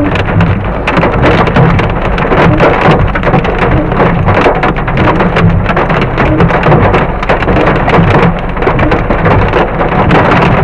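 Hail and heavy rain drumming on the car's roof and windscreen, heard from inside the car: a loud, dense, rapid clatter of impacts.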